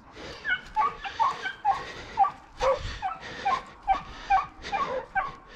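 A pack of rabbit-hunting hounds barking while running a hare or rabbit: a rapid, overlapping run of short calls from more than one dog, several a second.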